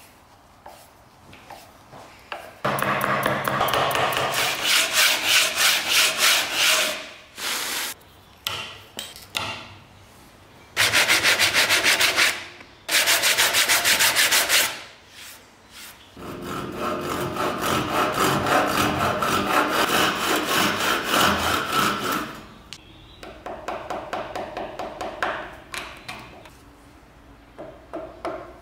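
Wood being sanded by hand with quick back-and-forth strokes, in several long bouts separated by short pauses.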